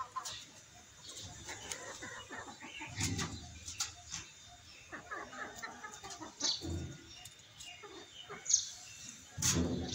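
Aseel rooster pecking grain off a concrete floor: scattered light taps, with soft clucks and short bird chirps. A few dull thumps come about three seconds in, near seven seconds and near the end.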